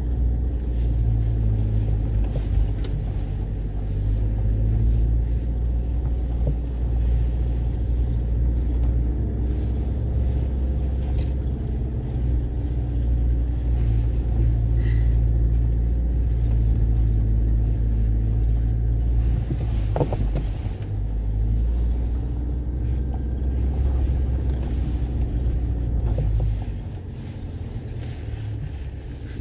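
Car engine and tyres on a rough dirt track, heard from inside the cabin as a steady low rumble with a single knock partway through. The rumble eases noticeably near the end.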